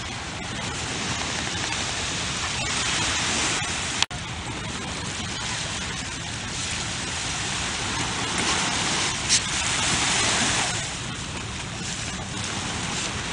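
Steady rushing hiss of ocean surf on the beach, with a sharp click and a brief dropout about four seconds in.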